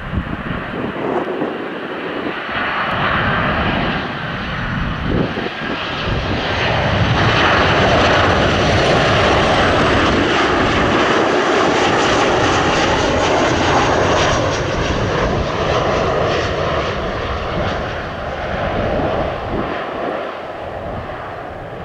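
Boeing 737-800's CFM56 jet engines passing close by: a loud engine noise that swells to a peak about halfway through, with a faint falling high whine, then fades away.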